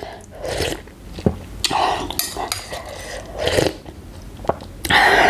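Close-up eating sounds: slurping and chewing instant noodles in broth, with a metal spoon clicking against the bowl a couple of times.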